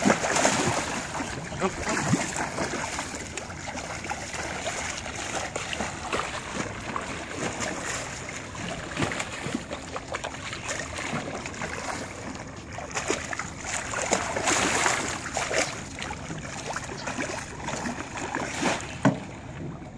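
Hooked giant catfish thrashing and splashing at the water's surface beside a landing net, with water sloshing. The splashes come in irregular bursts, with a sharp splash near the end.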